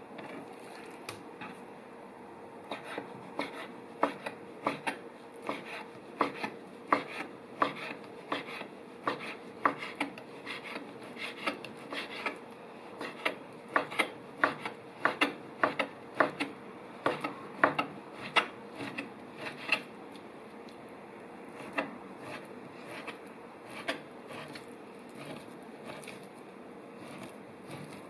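Knife chopping food on a wooden cutting board: sharp, irregular strokes, about two a second through the middle, thinning out after about twenty seconds.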